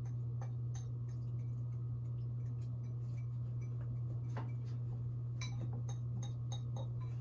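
Plastic utensil clicking and scraping against a glass bowl of ramen noodles as it is stirred: light, irregular clicks, several a second at times, over a steady low hum.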